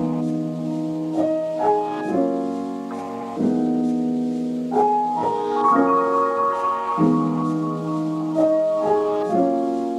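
Background piano music: slow held chords, a new chord about every second or so.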